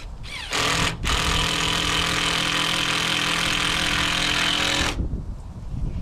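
Power drill driving a screw into the coop's wooden frame. The motor spins up with a brief rising whine about half a second in, pauses for an instant, then runs at a steady pitch for about four seconds before stopping.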